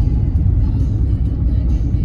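Steady low rumble of a car's engine and tyres heard from inside the moving car, with music playing underneath.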